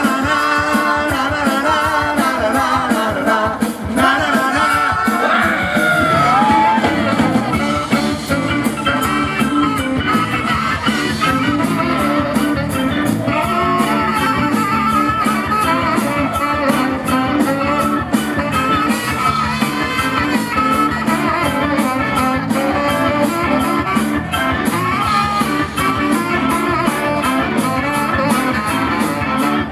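Live band playing a rock/blues song with singing, electric guitar and drums, loud and steady throughout.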